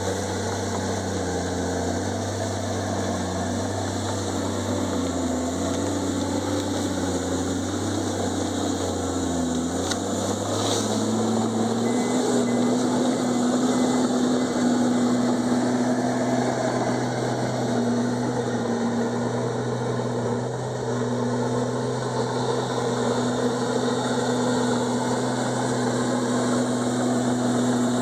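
Komatsu D51EX bulldozer's diesel engine running steadily. About ten seconds in its pitch rises and holds higher, with a short knock at that moment.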